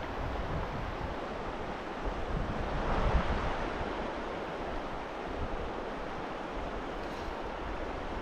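Steady rush of stream water, with wind buffeting the microphone in low gusts; the rush swells briefly about three seconds in.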